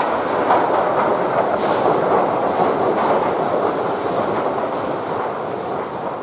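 Lumber stacking system running: steel drive chains and conveyors clattering steadily as dimension boards ride up the inclined chain elevator, with a few light board knocks, gradually getting quieter toward the end.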